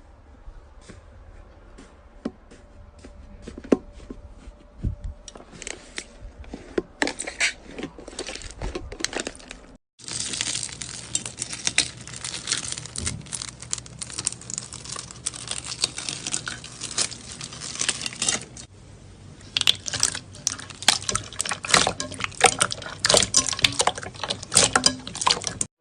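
Slime being played with: a dense run of sticky crackles, pops and clicks. A brief break about ten seconds in, after which the crackling is louder.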